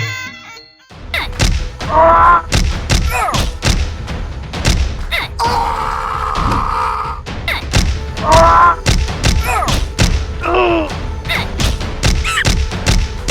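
Background music with a steady thumping beat, with a few short pitched cartoon sound effects over it.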